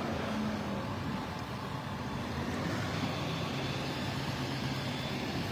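A motor vehicle engine running steadily with a low hum, its pitch shifting slightly near the start.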